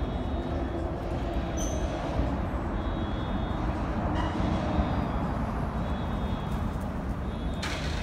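Steady low rumble of city background noise, with one short, sharp click near the end.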